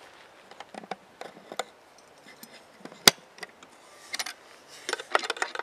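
Light clicks and knocks of a brass hasp being unlatched and a wooden tool box's lid being lifted, with one sharper click about three seconds in and a quick run of small metal-on-wood clinks near the end.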